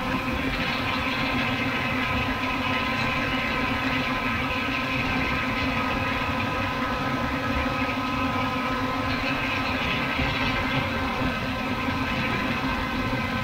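Multirotor drone's motors and propellers running steadily: a dense buzzing whine with several steady tones held together, its higher tones a little stronger about a second in and again around nine to eleven seconds in.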